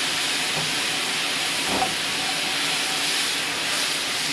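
Pan sauce sizzling steadily in a hot frying pan just after deglazing, with a melting pat of butter in it. There is a light knock about two seconds in.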